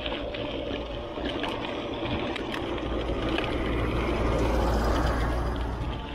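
A dump truck passes close by, its diesel engine rumble swelling to loudest about four to five seconds in and then fading. Under it runs the steady noise of mountain bike tyres on a dirt road, with scattered small clicks of grit.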